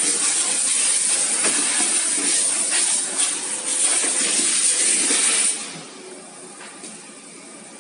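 TAIHO color sorter running with a loud, steady hiss and faint clicks through it. The hiss cuts off suddenly about five and a half seconds in, leaving a much quieter background.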